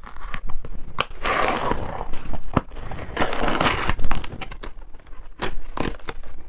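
Box cutter slicing the tape and cardboard of a parcel: two longer scraping cuts, about a second in and about three seconds in, among sharp clicks and taps on the cardboard.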